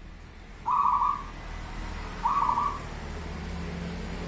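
Local zebra dove (perkutut) cooing: two short coo phrases about a second and a half apart, over a steady low background hum.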